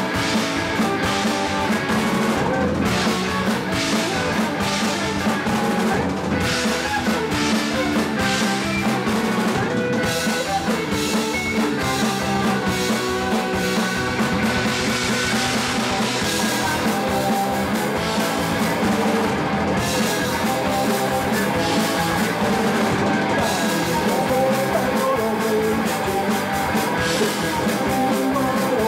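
Punk rock band playing live: electric guitar over a drum kit, loud and continuous.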